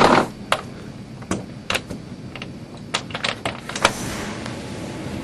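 Handling knocks and clicks: a loud thump at the start, then about a dozen sharp clicks and knocks over four seconds. From about four seconds in, steady rain hiss.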